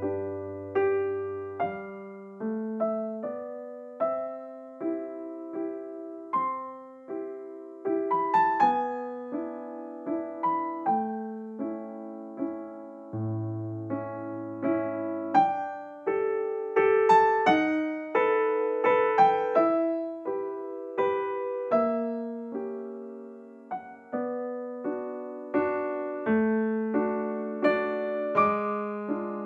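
Gentle background piano music: single notes struck one after another and fading, over a slow bass line.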